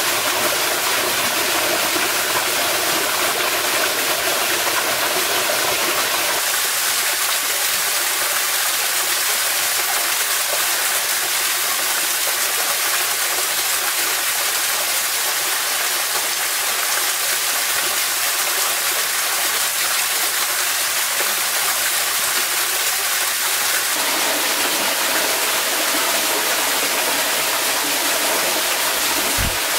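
Small waterfall and stream running steadily, a continuous rush of water, with a single dull thump near the end.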